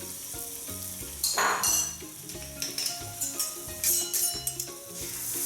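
Beef stir-fry strips sizzling in olive oil on a hot grill pan, with a loud surge of sizzling about a second and a half in and a few sharp clicks of the meat being moved around. Background music with a steady bass line plays underneath.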